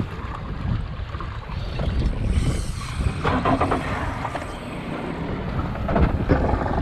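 Wind rumbling on the microphone over choppy sea, with water sloshing around a small boat and a few short clatters about three and six seconds in.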